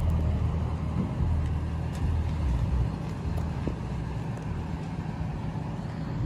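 A car engine running at low revs: a steady low hum that grows more uneven about two seconds in.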